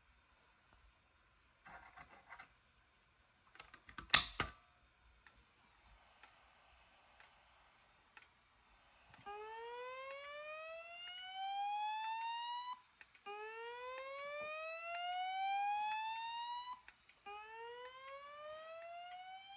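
Fire alarm speaker-strobes sounding the slow whoop alert of a voice-evacuation system: three rising sweeps of about three and a half seconds each, beginning about halfway through. Earlier, a sharp click about four seconds in, the loudest sound here, and a few fainter clicks.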